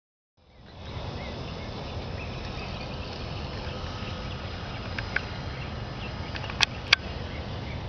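Outdoor ambience: a steady low rumble like wind on the microphone, with small birds chirping here and there, and two sharp clicks close together about two-thirds of the way through.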